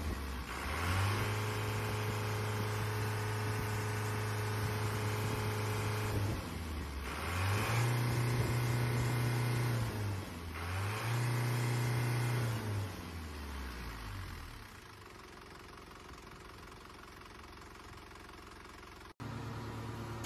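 Hino S05C 4.9-litre four-cylinder diesel in a Hino Dutro truck, revved and held at raised speed three times: about a second in for roughly five seconds, then twice more for a couple of seconds each, before settling back to a quieter idle. It picks up cleanly, which the seller takes as a sign of a healthy engine. About a second before the end the sound cuts off sharply and a different steady running sound follows.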